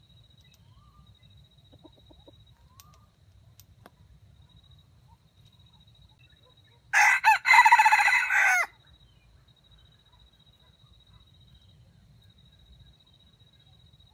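A red junglefowl rooster crowing once, about seven seconds in: a short crow of under two seconds that cuts off abruptly.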